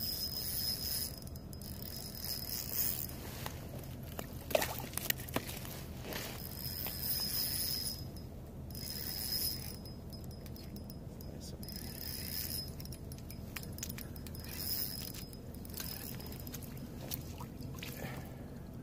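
Spinning reel being cranked to reel in a hooked fish, a high whir in several stretches of a few seconds each with pauses between, and a few sharp clicks about five seconds in.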